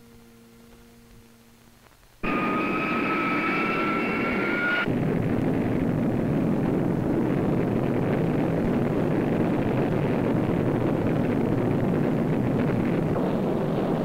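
Rocket launch. After a faint hum, a loud rocket-engine roar starts suddenly about two seconds in. For its first few seconds it carries a high whine that rises slightly, then it settles into a steady, dense rumbling roar.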